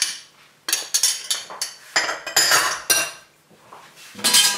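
A spoon knocking and scraping against a glass mixing bowl as curry powder is tipped in: several short clinks, then a louder clatter near the end.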